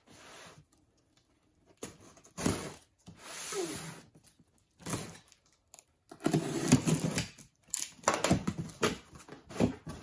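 Box cutter slitting the packing tape on a cardboard box, with tape ripping and cardboard flaps rustling and scraping as the box is opened. Short separate bursts in the first half, busier and more continuous over the last four seconds.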